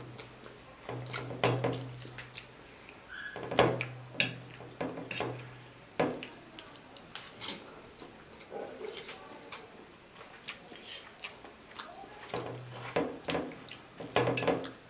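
A person slurping and chewing spicy instant ramen noodles, with many short wet slurps and mouth clicks, forks scraping the plate, and low hums in a few stretches.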